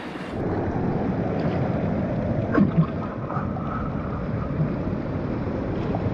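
Steady rush of sea surf and wind, with a couple of faint clicks about two and a half seconds in.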